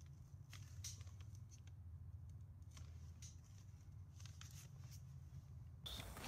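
Faint small clicks and rustles of fingers working a fuse into a small paper ball-shell firework, over a steady low hum. Near the end a hiss sets in suddenly as the firework sprays sparks.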